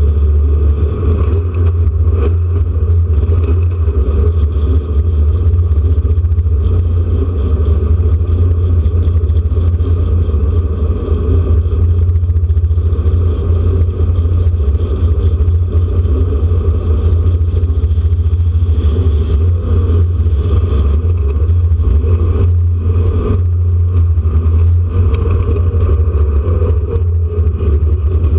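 Porsche 911 RSR's air-cooled flat-six engine running hard under racing load, heard from on board the car. A heavy, steady low rumble dominates, with no distinct gear changes standing out.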